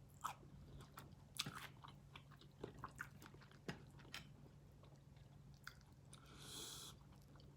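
Faint eating sounds of a seafood boil: scattered wet clicks and smacks of chewing and biting, with a brief hiss-like slurp about six seconds in.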